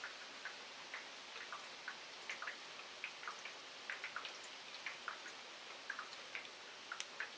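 Light rain falling onto wet paved ground: a steady soft hiss with individual drops landing as irregular clicks, a few each second.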